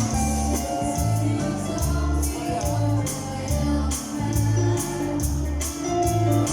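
Gospel song played with heavy bass notes, a tambourine shaken in a steady rhythm, and singing.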